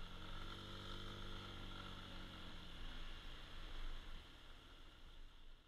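Honda SH150i scooter's single-cylinder engine running while riding on a gravel road, its note rising and easing back over the first few seconds, with a steady hiss of wind and road noise. It fades near the end.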